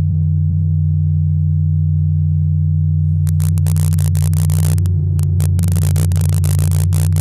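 Bauknecht STG 102 tuning fork modulator sounding two steady low tones together, the 90 Hz and 150 Hz signals that its electromagnetic pickups take off a 30 Hz tuning fork. About three seconds in, a harsh crackling noise starts cutting in and out over the tones and runs on until near the end.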